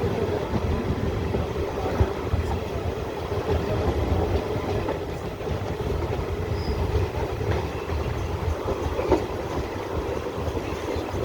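Kanchanjunga Express passenger train running on the track: a steady rumble of wheels on rail, with a few sharp clicks over the rail joints.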